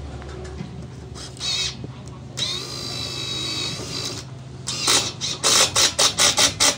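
Makita TD110D 12V cordless impact driver: its motor spins up with a brief whine, runs steadily for about two seconds, then near the end gives a string of short loud bursts, several a second, as it is triggered in pulses against a fastener.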